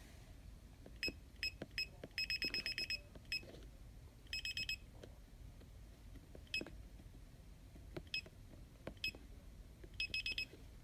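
DSC Impassa alarm keypad beeping as codes are keyed in. There are single short beeps about a second in and scattered later, a quick run of about ten beeps a little after two seconds in, a run of three around four and a half seconds, and another short run near the end.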